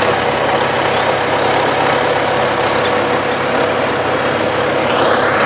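Farm tractor engine running steadily, with a faint rising whine near the end.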